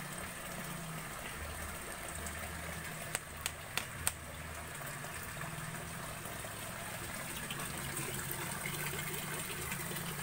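Water moving and splashing in a shallow concrete fish-fry tank as it is cleaned, with four sharp clicks about three to four seconds in.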